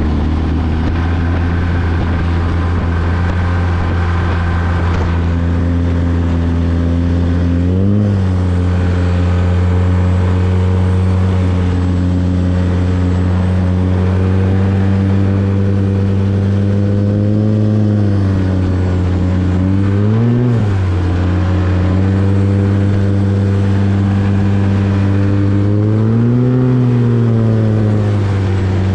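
Arctic Cat 1100 turbo snowmobile's three-cylinder four-stroke engine running steadily at high speed through an MBRP exhaust, heard from the rider's seat. The engine note briefly swings up and down four times, about eight seconds in, twice around eighteen to twenty seconds, and near the end.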